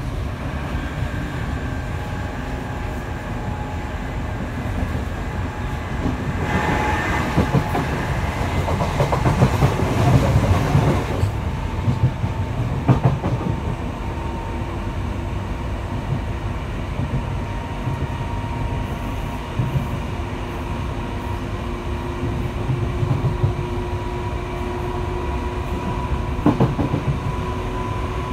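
Inside a British Rail Class 465 Networker electric multiple unit running along the line: wheels rumbling and clicking over the rails, with a steady whine from its Hitachi IGBT inverters and Brush traction motors. A louder rush of noise rises from about six seconds in and dies away by eleven seconds.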